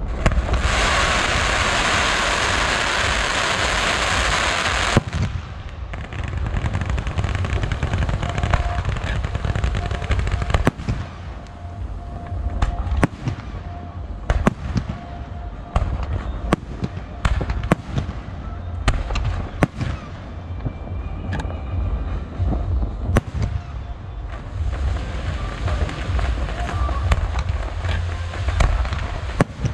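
Fireworks display. A loud hissing ground fountain runs for about the first five seconds and cuts off suddenly. Then comes a long irregular string of sharp bangs and pops from bursting shells, with more hissing and crackling near the end.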